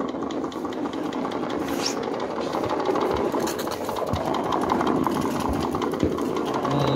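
Small home-built live-steam toy car running across a wooden floor: its little steam engine chatters with a fast, steady stream of exhaust puffs.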